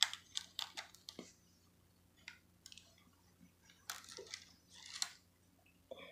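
Small plastic doll and accessory being handled: a quick run of light clicks and rustles, then a few scattered clicks and another short cluster of rustling about four seconds in.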